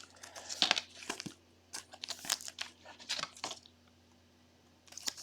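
Plastic crinkling and rustling with sharp clicks, from handling trading cards in plastic sleeves and wrappers. It stops about three and a half seconds in, and a few more clicks come near the end.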